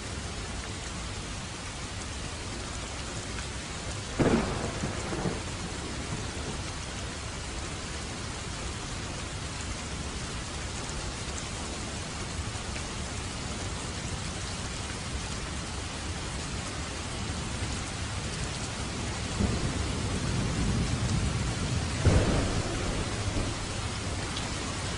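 Steady rain falling in a thunderstorm. A sharp thunderclap comes about four seconds in, and a longer low rumble of thunder builds near the end, peaking in a crack.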